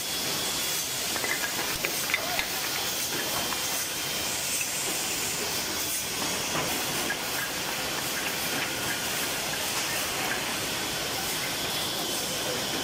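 Steady hissing machine noise of a Woodmaster WM-500X high-speed automatic cross-cut saw running with its dust extraction. A few sharp clacks of cut wood blocks come about one to two and a half seconds in.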